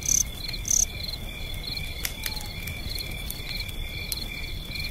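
Insects chirping in a steady, pulsing night chorus, with scattered sharp crackles and two short high hisses in the first second.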